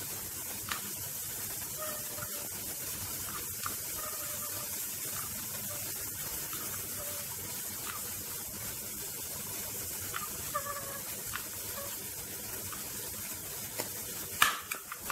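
Water at a rolling boil in a steel pot, a steady bubbling hiss, with a sharp click near the end.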